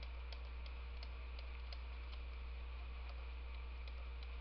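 Faint, irregular light clicks, about three or four a second, of a pen tapping on a drawing tablet while handwriting, over a steady low electrical hum.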